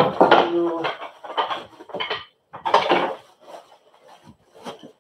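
Metal frame tubes of a Snuzpod4 bassinet clattering and knocking against each other and the box as they are unpacked, with plastic wrapping rustling. Loudest in the first second, then scattered knocks.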